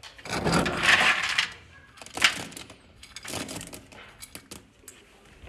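Plastic scoop digging into a bin of dry pet-food kibble: a rushing rattle for about a second, a sharp clatter about two seconds in, then small clicks and ticks as the pieces shift in the scoop.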